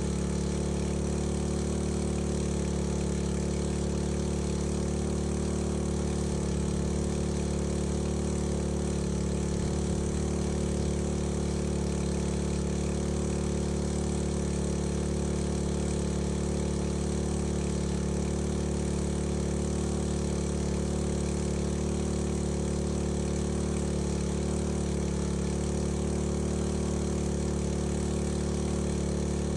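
Engine-driven fire pump running at a steady speed, its engine note unchanging throughout.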